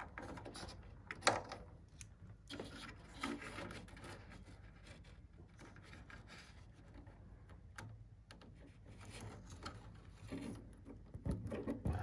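Faint handling noise of servo leads and plug connectors being fumbled into place inside a plywood RC airframe: rubbing and scraping against the wood, with a sharp click about a second in and a few smaller clicks and knocks.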